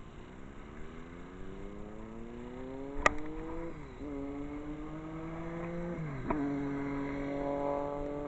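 A motor vehicle's engine accelerating through the gears: its pitch climbs, drops at a shift about four seconds in and again about six seconds in, then holds steady. A single sharp click about three seconds in.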